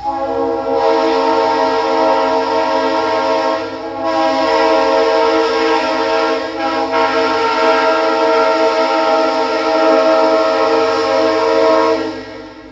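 Leslie Supertyfon RS3L three-chime locomotive air horn, an early-1980s ex-Conrail horn, sounding one long steady chord. It dips briefly about four seconds in and cuts off after about twelve seconds.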